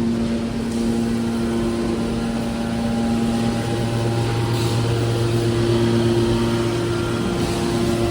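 Hydraulic scrap car baler running: a steady machine drone with several held hum tones. The low hum grows stronger about three and a half seconds in.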